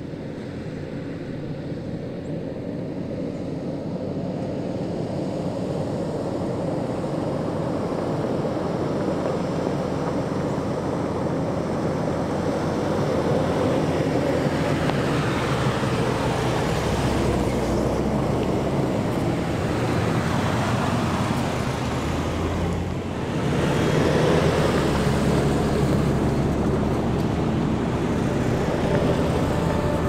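Two SUVs, a Toyota 4Runner and a Lexus GX, drive along a dirt trail. Their engines and tyres on the dirt grow steadily louder as they approach. The first passes close, there is a brief dip a little after the middle, then the second comes by loudly.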